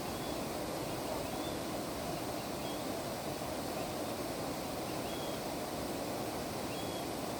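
Steady rushing of flowing stream water, with a few faint, short, high chirps over it.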